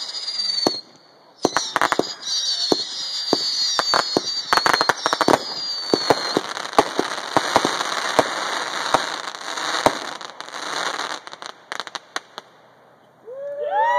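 Fireworks going off: rapid bangs and dense crackling, with several high whistles sliding down in pitch, thinning to scattered pops after about eleven seconds.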